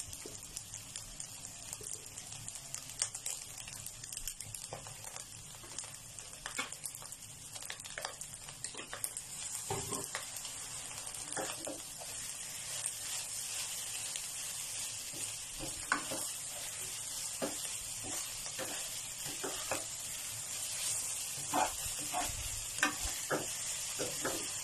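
Fried rice with long beans and egg sizzling in a frying pan, with a spatula scraping and tapping the pan as it is stirred. The sizzle grows stronger about nine seconds in.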